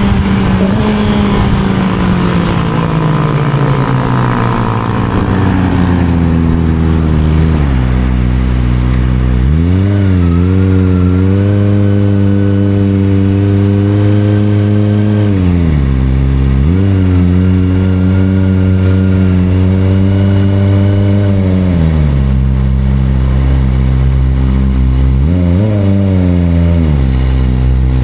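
Kawasaki 250 cc sport-bike engine heard from the rider's position. Revs fall away over the first several seconds as the bike slows, then it pulls away and holds steady revs, three times over with drops in between. Near the end there are a few short quick blips of throttle.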